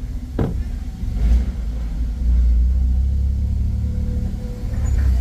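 Car driving slowly on a rough dirt road, heard from inside the cabin: a steady low rumble of engine and tyres that grows louder from about two seconds in. A short sharp sound comes just under half a second in.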